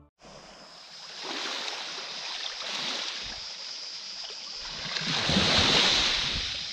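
Small waves washing onto a pebble beach, the noise of the sea swelling and ebbing, with the loudest surge about five seconds in.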